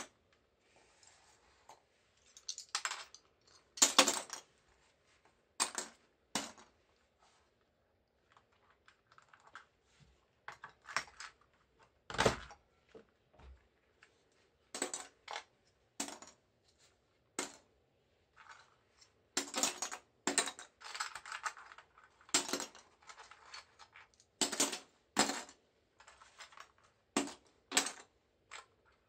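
Plastic keycaps being pulled off a keyboard and handled: irregular sharp clicks and light clattering, some in quick clusters, with soft rustling in between.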